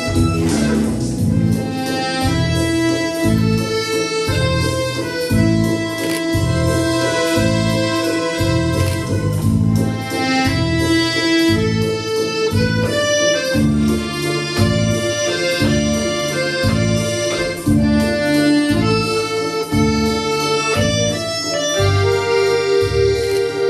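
Piano accordion played solo: a melody of held notes over a steady, pulsing low accompaniment.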